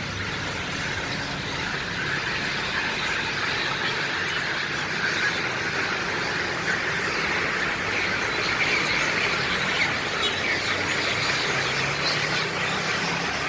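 A large troop of long-tailed macaques squealing and screaming all at once in a mass fight: a dense, unbroken chorus of many overlapping high-pitched calls.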